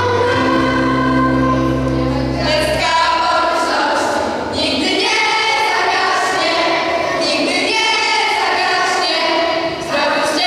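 A group of girls singing a song together to a backing track, with steady low accompaniment notes under the first few seconds.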